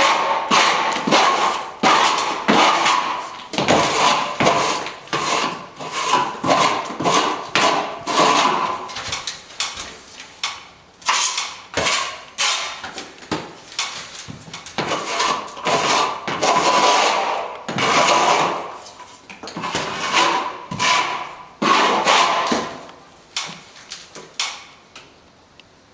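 Hand tool working on a plaster wall: a rapid run of short scraping and knocking strokes, several a second, thinning out over the last few seconds.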